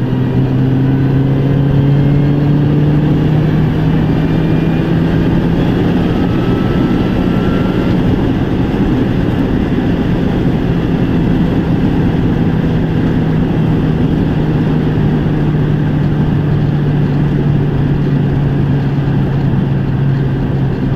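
Mini Cooper S R53's supercharged four-cylinder engine heard from inside the cabin under hard acceleration in fourth gear, its pitch rising over the first few seconds and then holding steady, with road noise underneath.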